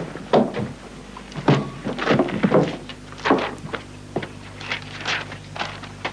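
A thick telephone directory set down on a counter with a thunk, then handled and its pages flipped in a string of short, irregular knocks and rustles.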